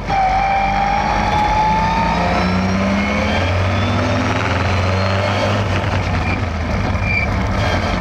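1962 Austin-Healey 3000 MKII's 3-litre straight-six, breathing through triple Weber 45 carburettors, heard from inside the cockpit as the car is driven hard. After a brief dip right at the start, the revs climb over the first two seconds, then the engine runs on steadily.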